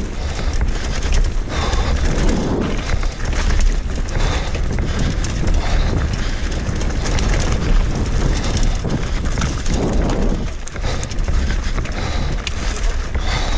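Wind rumbling on the microphone of a camera riding on a mountain bike as it descends a rough dirt trail, with the bike rattling and clattering over rocks and roots in many quick knocks.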